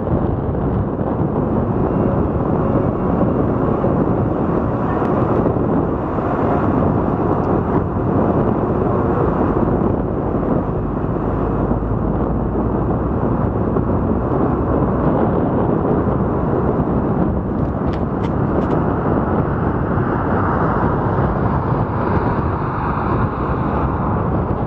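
Steady road and wind noise from a car driving, with no distinct engine tone, and some wind buffeting on the microphone.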